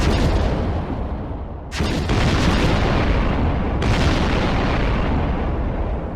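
Volcanic eruption: a loud, continuous blast noise heaviest in the low end, with fresh surges about two and four seconds in, fading near the end.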